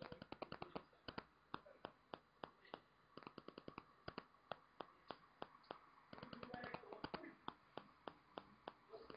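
A quick, irregular run of sharp clicks and taps, several a second, with a faint voice-like murmur about six to seven seconds in.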